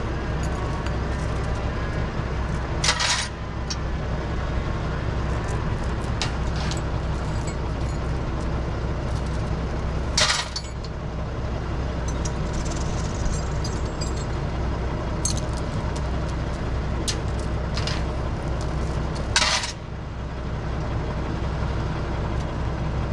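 Tractor engine running steadily, with three short, sharp hissing bursts about seven to nine seconds apart and light metallic clinks between them.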